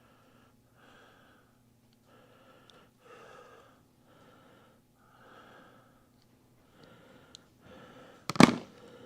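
Audible breathing in soft puffs about a second apart while working, then one loud sharp snap near the end as the hand crimper closes on the Weather Pack terminal's seal crimp.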